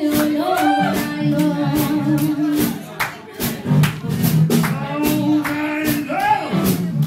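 A live blues band playing a steady shuffle beat with electric guitar while a singer sings over it.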